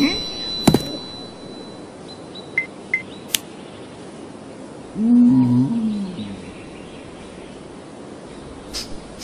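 A cartoon caveman's wordless grunt about five seconds in, one voiced sound that rises and then falls in pitch. Before it a sharp knock comes just under a second in, followed by a few light clicks, over a steady background hiss.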